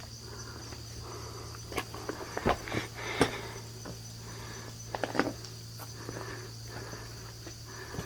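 Steady high drone of insects, with a few irregular knocks and scrapes of footsteps on dry creek-bed rocks, the loudest about two and a half and three seconds in.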